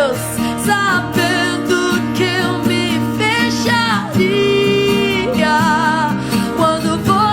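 Christian worship song: a sung vocal line with long held, wavering notes over guitar-led accompaniment.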